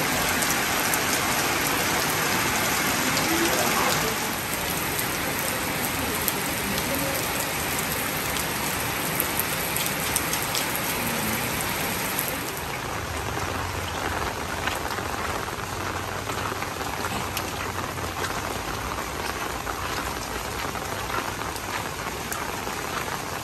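Heavy rain falling steadily on wet paving, with scattered sharper drop hits close by. It eases a little about four seconds in and again about twelve seconds in.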